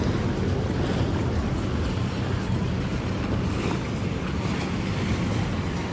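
Mercury outboard motor on a rigid inflatable boat running steadily at cruising speed, a constant low drone, with water rushing along the hull and wind on the microphone.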